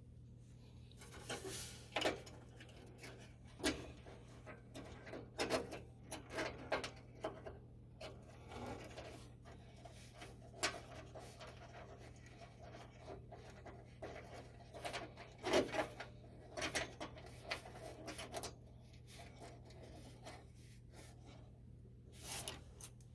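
Scattered clicks, taps and short scrapes of hands handling screws and metal parts while refitting a furnace flame sensor, over a steady low hum.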